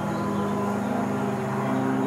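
Race car engines at high revs on a fast section of track, a steady, layered engine note. A second, higher note joins near the end.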